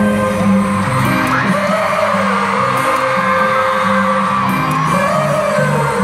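Live K-pop concert music through an arena sound system, a sung vocal line over a bass-heavy beat, with fans whooping and screaming along.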